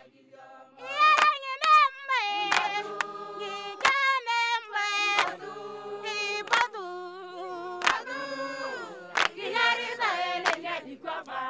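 A group of voices singing together in a high register, with a sharp hit about every second and a half.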